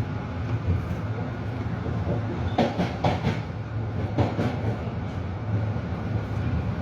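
Metro-North Railroad electric train car running, heard from inside: a steady low rumble with a few knocks from the wheels over the rails partway through.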